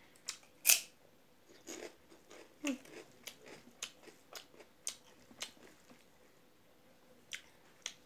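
Close-up biting and chewing of crisp fried papad: one sharp crunch just under a second in, then a run of smaller crisp crunches about twice a second as it is chewed.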